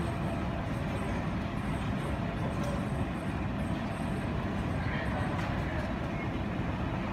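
Steady low rumbling background noise inside an airport terminal, heard through the window glass, with no distinct event standing out.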